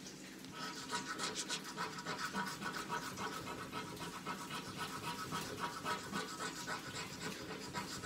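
Scratch-off lottery ticket being scraped with a small metal scratcher: quick, repeated rasping strokes that start about half a second in and keep going.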